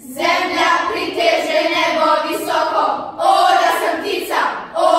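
A chorus of children's voices in unison, a group recitation performed loudly in phrases that break off briefly every second or so.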